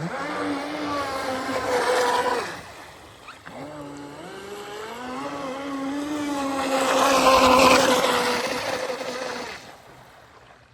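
Radio-controlled boat's motor whining as it runs on the water, its pitch stepping up and down with the throttle. It is loud briefly at first, then builds again to a louder peak with a hiss of water before fading out near the end, as the boat passes close.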